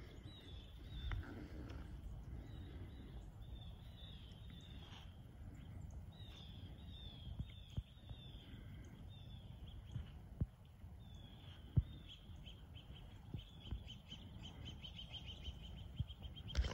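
Birds calling: a series of clear, downward-sliding whistled notes, repeated again and again, ending in a quick run of short notes near the end. A low rumble of wind noise and a few sharp clicks lie under it.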